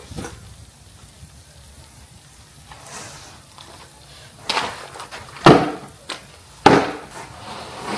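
Snow shovel scraping and striking the driveway: a few faint strokes, then three loud, short scrapes about a second apart in the second half.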